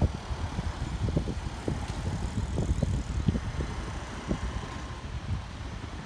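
Wind buffeting the microphone in irregular gusty thumps, over faint distant road traffic.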